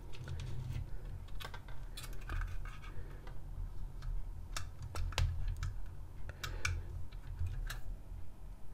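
Scattered light clicks and taps of a 3D-printed plastic hopper, a small stepper motor and screws being handled, over a steady low hum.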